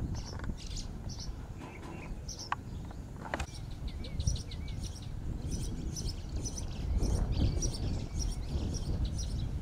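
Small birds chirping, many short high calls repeating over a steady low rumble of outdoor noise, with a couple of sharp clicks around the middle.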